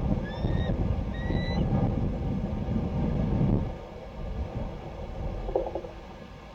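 Wind gusting against the microphone in a heavy, uneven low rumble that eases off sharply about three and a half seconds in. Two short rising chirps sound early on, about a second apart.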